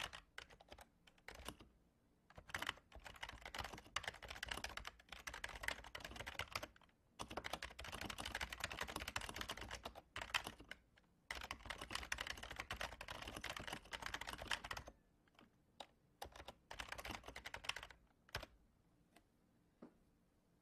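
Typing on a computer keyboard: fast runs of keystrokes with short breaks, thinning out to a few scattered single key presses near the end.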